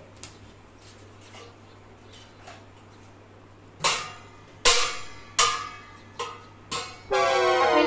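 Steel plates struck together by hand, clanging like cymbals: about five separate strikes in the second half, each ringing briefly, then a longer, louder ringing clang near the end. Before that only faint small knocks.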